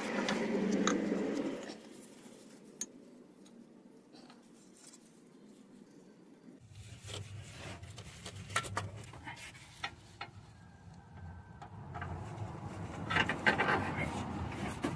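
Faint handling noises: rubbing and rustling with scattered light metal clicks as gloved hands fit a motor mount into its engine bracket. A low steady hum comes in about halfway.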